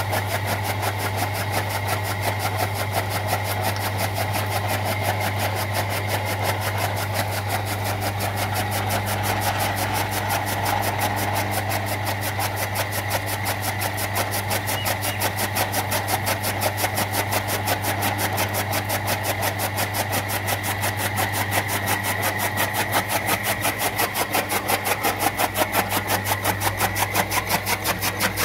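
Electric toka machine (chaff cutter), driven by a 2.5 hp electric motor through a belt and large bladed flywheel, running steadily and chopping green fodder, with a steady hum under a fast regular chopping beat. Near the end the beat grows more pronounced, about three to four strokes a second.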